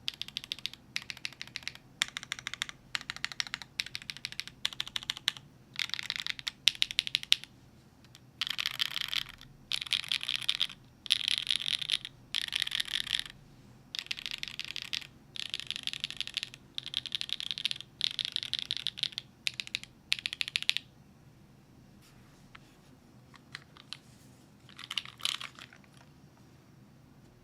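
Custom mechanical keyboard (DriftMechanics Clara, gasket-mounted with a full aluminum plate) fitted with stock long-pole Gateron Deepping switches and GMK keycaps, being typed on in bursts of fast keystrokes with short pauses. After about 21 seconds the typing thins to a few scattered keystrokes and one brief burst.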